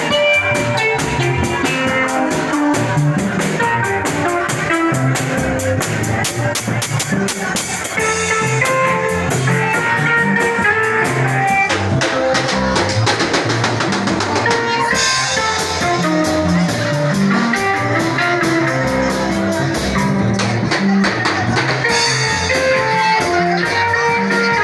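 Band music with a drum kit keeping a steady beat under guitar and other instruments.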